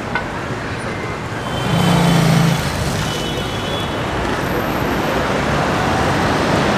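City street traffic: a steady wash of passing motor vehicles, with a brief, louder low hum about two seconds in.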